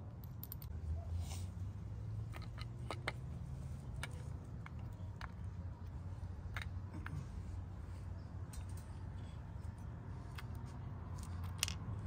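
Scattered light clicks and taps of metal and hard plastic as a short-shifter lever and its parts are handled and fitted back into a black plastic shifter housing, over a steady low hum.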